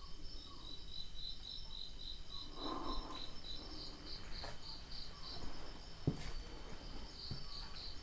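Crickets chirping in a quick, even run of about four chirps a second over a steady high insect trill. A brief rustle comes about three seconds in, and there are two soft knocks near the end.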